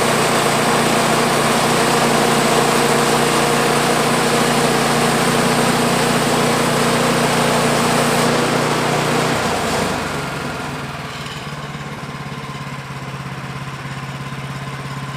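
Portable band sawmill's gas engine running at high speed with a loud hiss over it, then throttling down to a steady idle about ten seconds in.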